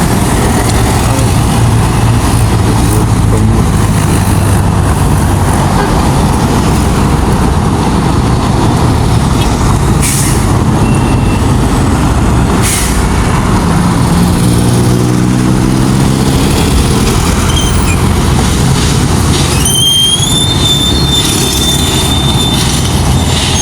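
Heavy road traffic passing close by, with vehicles running steadily. A louder engine passes around the middle, and a steady high-pitched squeal sounds for a few seconds near the end.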